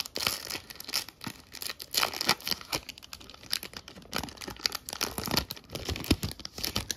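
Pokémon booster pack's foil wrapper being torn open and crinkled in the hands: a long run of irregular crackles and tearing that stops near the end.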